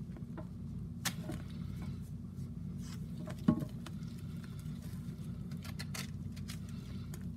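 Pressed Comet cleanser brick being shaved and crumbled by hand, with scattered small crackles and crunches of the powder breaking off. One louder knock comes about three and a half seconds in, and a steady low hum sits under it all.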